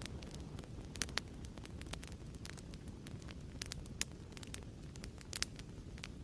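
Fireplace crackling: a steady low rumble of burning with frequent sharp pops and snaps, a few louder pops about a second in and again near four and five and a half seconds.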